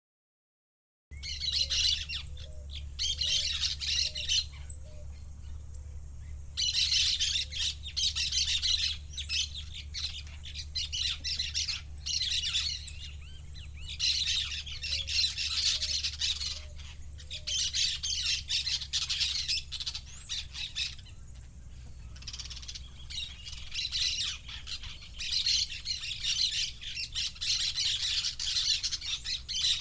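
Birds squawking and chattering in loud bursts of a second or two, repeating every few seconds, with a few short rising notes from another bird lower down, over a steady low rumble. It starts about a second in.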